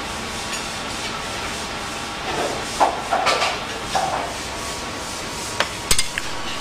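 Faint kitchen handling sounds over a steady hiss: rubbing and scraping in the middle, then a few sharp clicks near the end, as caramel sauce is ladled onto a plate.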